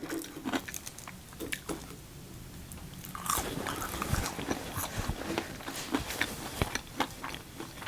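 Close-miked mouth sounds of a person chewing a mouthful of food: crunching with many small wet clicks, busier from about three seconds in.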